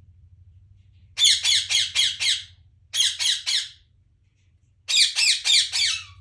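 Parrot chirping in three quick runs of short, harsh, repeated notes, about four notes a second, with brief pauses between runs.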